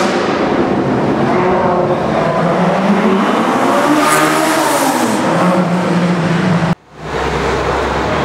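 Supercar engines revving hard inside a road tunnel, echoing off the walls, with a pitch that swings up and down and a sharp rise about four seconds in. Near the end the sound cuts out for an instant and gives way to a lower, steadier engine rumble.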